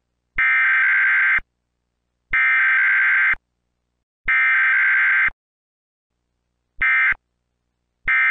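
Emergency Alert System Required Monthly Test data tones (SAME): three shrill, buzzy bursts of about a second each, roughly a second apart. Then two short end-of-message bursts, about a third of a second each, the second near the end.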